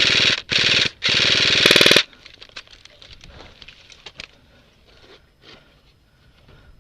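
Airsoft rifle firing on full auto close by: three loud bursts of rapid, evenly spaced shots in the first two seconds, the last about a second long. After that only faint scattered clicks and pops.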